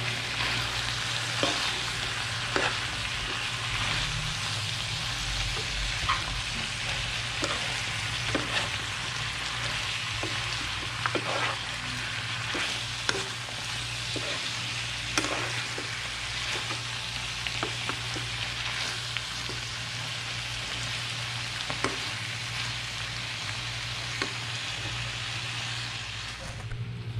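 Chicken and vegetable stir-fry sizzling in a non-stick frying pan while a metal spoon stirs and tosses it, with scattered clicks of the spoon against the pan. A steady low hum runs underneath.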